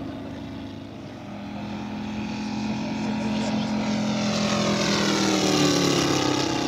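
Quarter-scale RC Hawker Sea Fury's Moki 250cc five-cylinder radial petrol engine running in flight. It grows louder as the model comes past about five seconds in, and its pitch falls as it goes by.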